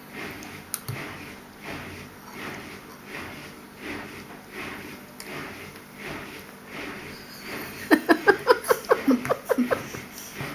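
A young child breathing audibly through the nose, about one breath a second. About eight seconds in, a quick run of short sung or babbled syllables takes over for a couple of seconds.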